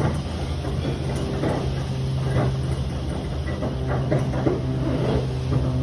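Heavy truck engine idling steadily, with scattered short knocks and rattles over it.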